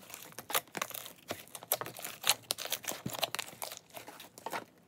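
Hands squeezing and kneading a large mass of mixed slime in a clear plastic tub, making a run of irregular wet clicks and pops.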